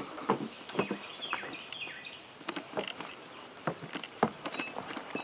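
Outdoor ambience in a yard: a run of short high chirps, some gliding in pitch, about a second in, over scattered light clicks and taps.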